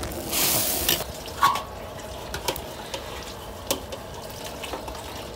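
Water running from a tap and splashing as a wok lid is rinsed at a sink, with a few light clicks and clinks.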